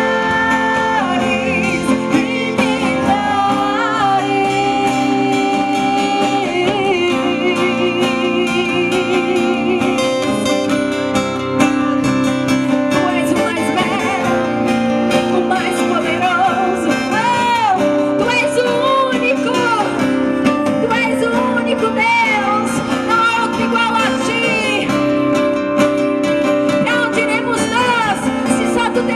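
Gospel worship music: steady held chords with guitar, and a voice singing long, wavering melodic lines over them, sliding up and down more often in the second half.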